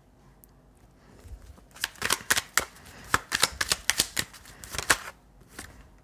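Hand-shuffled deck of oracle or tarot cards: a quick, irregular run of card flicks and taps that starts after a quiet second or so and stops about five seconds in.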